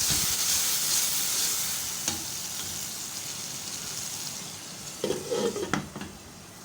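Onion, tomato and spice masala sizzling in hot oil in a pot just after a splash of water is added, with a spoon stirring. The sizzle is loudest at the start and slowly dies down, with a knock about two seconds in and a few clinks near the end.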